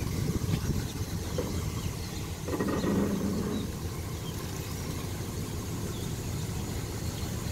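Dodge Ram 1500 pickup's engine idling steadily, with a brief louder swell about two and a half seconds in.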